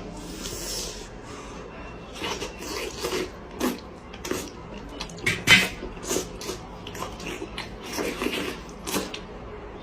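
Someone eating noisily: irregular wet chewing and lip-smacking sounds, several a second, the loudest a little past the middle.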